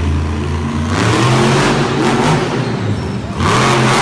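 Monster truck engine revving hard under full throttle as the truck accelerates. It surges loudly about a second in, dips, and surges again near the end as the truck lifts into a wheelie.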